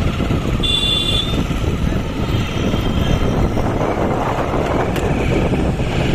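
Steady road-traffic rumble with wind buffeting the microphone while riding along a city street. A short, high horn toot sounds about a second in.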